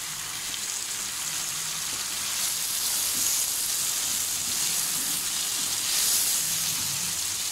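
Chopped tomatoes and chicken necks sizzling in hot mustard oil in a metal karahi, with a steady hiss as they are stirred with a wooden spatula.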